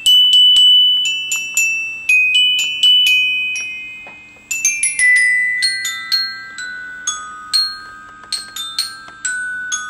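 Glockenspiel (student bell kit) played with mallets: a slow melody of single struck notes that ring on. After a brief lull about four seconds in, the tune moves lower and the notes come a little quicker.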